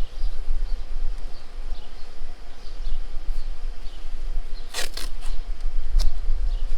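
Low steady rumble, like wind on the microphone, with faint high chirps. A few short sharp rasps come about two-thirds of the way in.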